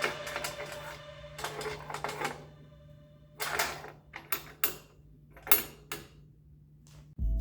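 Short metallic clatters and knocks, one after another and irregularly spaced, from mechanical parts being handled or adjusted, over a faint low steady hum.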